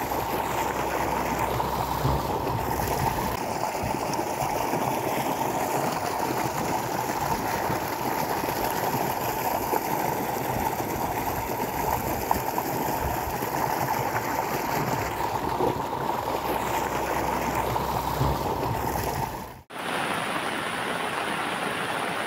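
Muddy floodwater rushing steadily over a submerged bridge, a continuous sound of fast-flowing water. It drops out for a moment near the end and then resumes.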